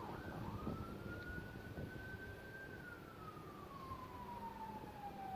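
Faint emergency-vehicle siren in a slow wail: a single tone rises quickly about half a second in, holds, slides slowly down over the next few seconds, and starts rising again at the end.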